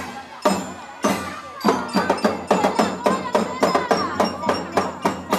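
A marching drum band playing: quick, repeated drum strokes under ringing, bell-like notes, with voices mixed in.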